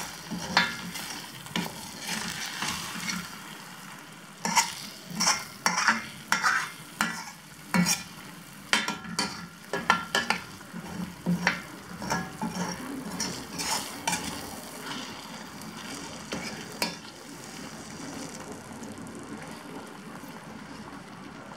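Paneer butter masala gravy sizzling in a pan over the flame while a spoon stirs it, with a run of scrapes and knocks against the pan. Near the end the stirring stops and only the steady sizzle remains.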